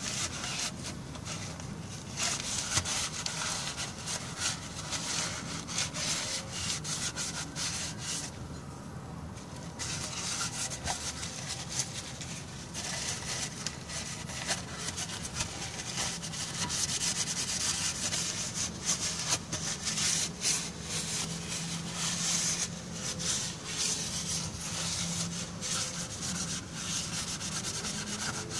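Continuous rubbing and scrubbing in quick strokes as metal shavings are cleaned off a transmission oil pan's drain magnet, with a short pause about eight seconds in.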